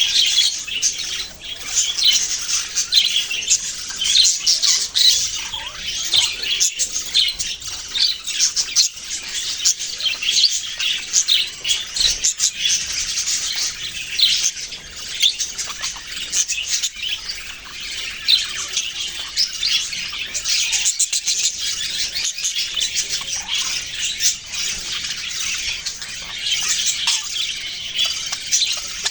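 A flock of budgerigars chirping, many short high calls overlapping without a break.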